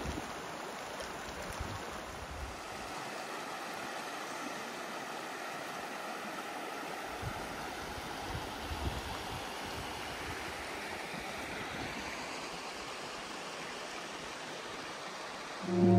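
A shallow, rocky mountain river rushing over stones: a steady rush of moving water.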